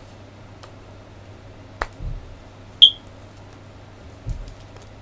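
Hard plastic parts of a Slifer the Sky Dragon model kit clicking and knocking as they are handled, a few separate clicks and soft knocks, the loudest a sharp click about three seconds in. The joints are loose and pieces are coming off.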